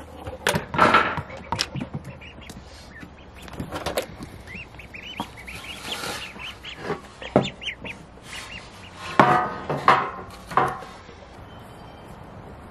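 A duckling peeping in a plastic tote, short high chirps in quick runs, with a few louder bird calls about nine seconds in. Rustling and handling noises from the coconut-fibre basket liner come and go.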